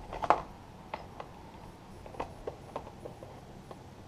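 Handling noise as a red engine cover and its tubular handle are fitted onto a mini tiller's small two-stroke engine. A sharp knock comes about a third of a second in, followed by scattered lighter clicks and taps.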